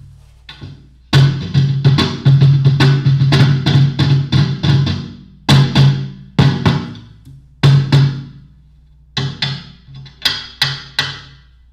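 Homemade cajon made from a tall metal ammo can, slapped by hand, its piezo pickup played through a bass amp: each hit gives a deep boom with a snare-wire rattle on top. The hits come in uneven runs of several a second, broken by short pauses, over a steady low hum from the amp.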